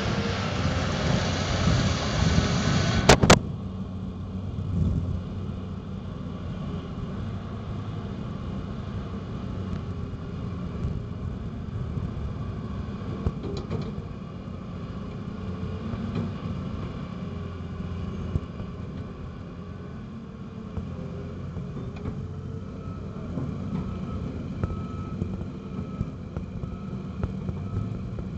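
Cat 330CL excavator's diesel engine running steadily, a low drone with a thin steady whine above it. It is louder for the first three seconds, which end in two sharp knocks.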